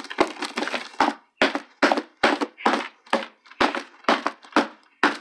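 A cardboard box stabbed over and over with a thin rod: about a dozen sharp cardboard thuds, two or three a second.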